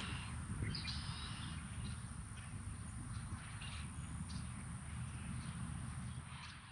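Open-field ambience: a low rumble with scattered short bird chirps and a thin, steady high tone.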